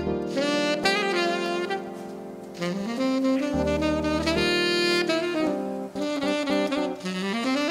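Background music: a jazz tune with a saxophone melody over a bass line.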